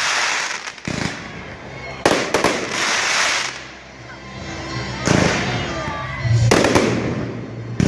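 Fireworks display: shells bursting overhead in a string of about six loud bangs, one to three seconds apart, each trailing off in a long echoing rush.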